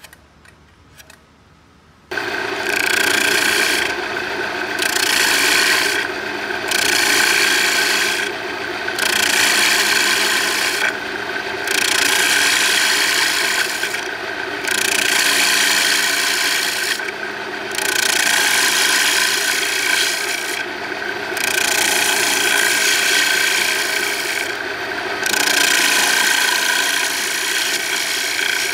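A gouge cutting across the face of a walnut plate spinning on a wood lathe. The cutting noise starts suddenly about two seconds in and comes in passes of two to four seconds, breaking off briefly about eight times as the tool is lifted and set back in.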